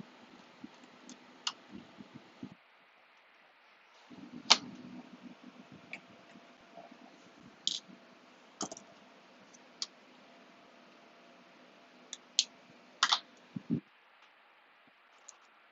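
Scattered sharp clicks and taps of a precision screwdriver and fingers against the aluminum case of a 12-inch PowerBook G4 while working at a stuck screw, over faint handling rustle. The loudest click comes about four and a half seconds in, with a quick run of clicks near the end.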